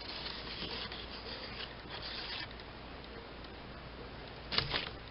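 Sheets of stamped paper rustling and sliding against one another as they are handled, with a louder rustle near the end.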